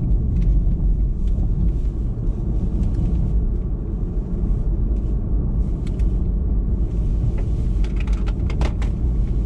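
Steady low rumble of a car in motion, road and engine noise heard from inside the cabin, with a few light clicks near the end.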